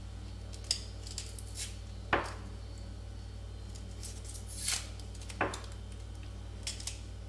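A small kitchen knife peeling garlic cloves by hand: a handful of light clicks and scrapes of the blade against the papery skin, the sharpest about two seconds in and another near five and a half seconds, over a steady low hum.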